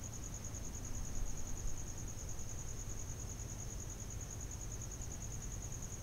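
Crickets chirping in a steady, rapid, high-pitched trill of even pulses, over a low background rumble.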